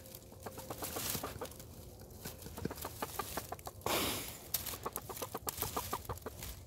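A hen clucking softly in short, quick notes as she pecks and roots through a pile of dry leaves, with a short burst of leaf rustling about four seconds in.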